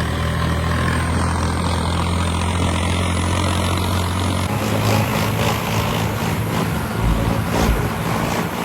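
Diesel tractor engine running steadily while the tractor is driven along the road. Its note shifts about halfway through. A couple of low thumps near the end.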